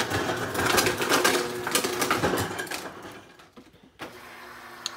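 Rustling and knocking of a phone being handled and carried, dying away after about three seconds, then an abrupt change to a faint steady hum.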